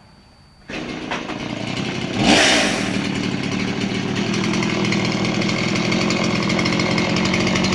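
Chainsaw engine comes on abruptly less than a second in, revs up sharply around two seconds in, then runs steadily at high speed.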